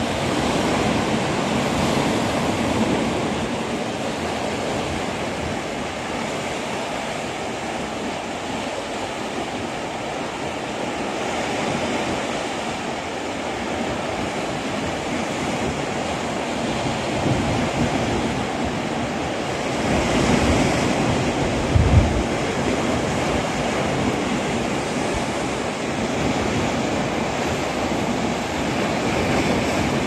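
Calm sea: small waves washing steadily against the rocks below, a soft rushing that swells and eases, with wind on the microphone and one short low thump from a gust about two-thirds of the way through.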